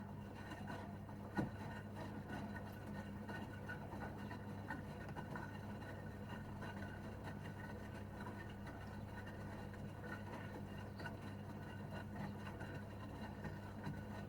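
Gorenje UseLogic 65165 front-loading washing machine partway through its wash cycle. The drum motor hums steadily under scattered small clicks and splashes from the tumbling load, with one sharper knock about a second and a half in.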